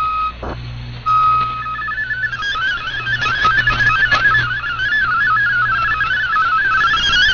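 Shortwave digital-mode data signal, MFSK32 audio tones: a steady single tone, briefly broken off, then from about two seconds in a continuous stream of rapidly stepping tones, over a steady low hum.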